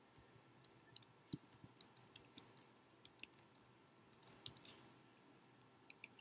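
Faint computer keyboard typing: short, irregular keystroke clicks, some in small quick clusters, spread through the few seconds.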